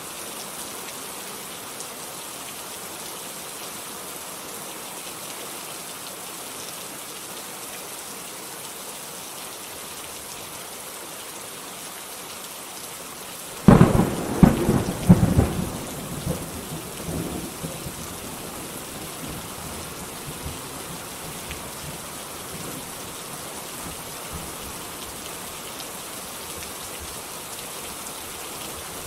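Steady heavy rain hissing, with a sudden loud thunderclap about halfway through that cracks and then rumbles away over a few seconds.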